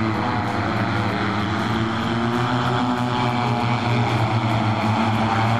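Volocopter VoloCity electric multicopter in flight, its 18 rotors making a steady hum with several held tones over a whooshing rush of air.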